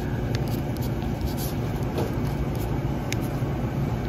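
Steady low rumble of a vehicle, with a couple of faint clicks.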